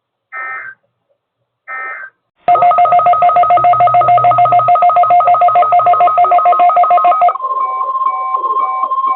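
Emergency Alert System end-of-message data bursts from a NOAA Weather Radio broadcast: two short buzzy digital bursts about a second and a half apart. About two and a half seconds in, a loud electronic two-tone signal starts, pulsing rapidly, and near the end it changes to a steady tone with intermittent beeps over it.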